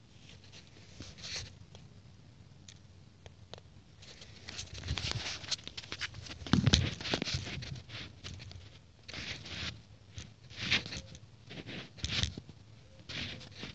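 Handling noise from a hand-held camera being moved about: irregular rustling and scraping with a few soft thumps, and no motor running.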